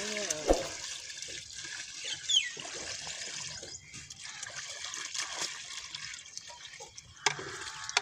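Water poured from a bucket splashing and trickling into a muddy, water-filled planting hole, thinning out about halfway through as the bucket empties. A sharp knock sounds near the end.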